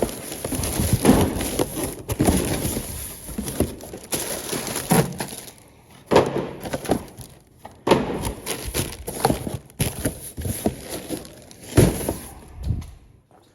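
Rummaging through a box of packaged phone accessories: irregular clattering and knocks of plastic packages being handled and dropped, with rustling between them.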